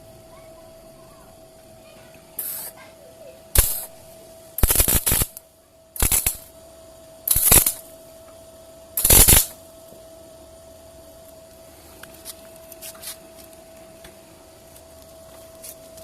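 Arc welding in six short bursts, each under a second, as tack welds are laid on the steel frame of a homemade drill-press stand; a steady faint hum runs underneath.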